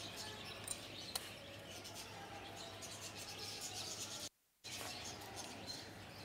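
A flock of budgerigars chirping and chattering in many short high calls over a low steady hum. The sound drops out completely for a moment a little past four seconds in.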